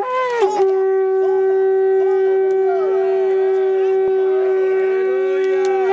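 A shofar blown in one long, steady held note that stops near the end. Faint voices of people can be heard underneath.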